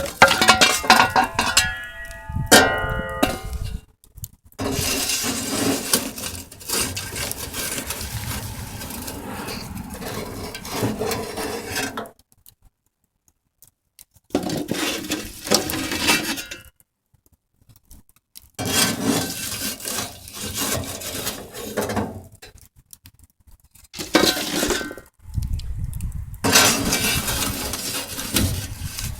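A metal shovel scraping and clanking inside the firebox of a wood stove built from an old furnace, scooping out hot ash. It opens with ringing metallic clinks, then comes in several stretches of rough scraping broken by short silences.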